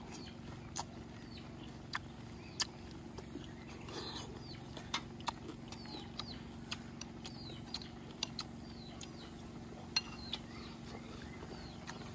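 Eating sounds of cooked June beetles: a dozen or so sharp, irregular clicks and crunches from a metal spoon on the bowls and from chewing the crisp beetle shells.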